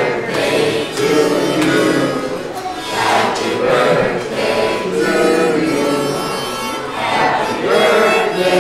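Harmonica playing a tune, with held chords that shift note every second or so.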